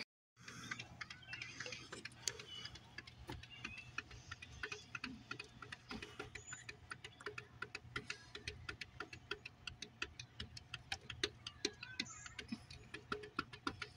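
Rapid, irregular tapping and clicking of a cat's paws and claws on a glass sliding door, several taps a second and growing busier near the end, over a faint steady hum.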